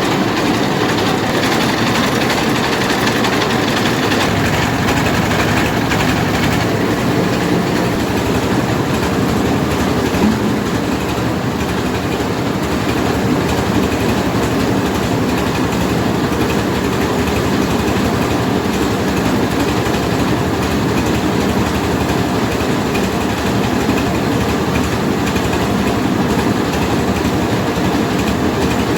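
Mobile rice milling machine running: a loud, steady mechanical rattle of the engine and milling machinery.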